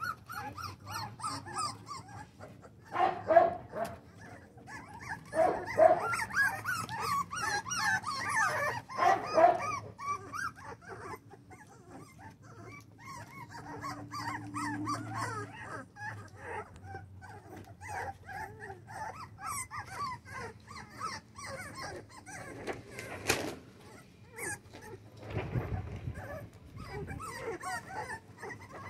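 A litter of four-week-old American bully puppies whining and yipping, many small voices overlapping, with a few louder yelps in the first ten seconds.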